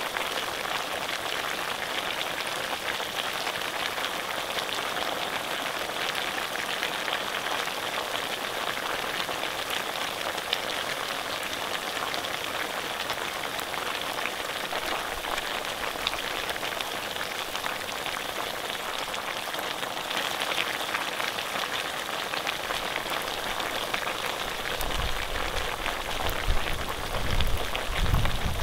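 Pork frying with a steady, dense sizzle. Some low thumps and rumbling come in near the end.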